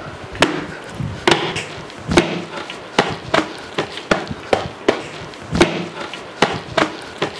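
Small double-headed, rope-laced hand drum struck with the hands, single strokes with a short low ring in a slow, uneven beat.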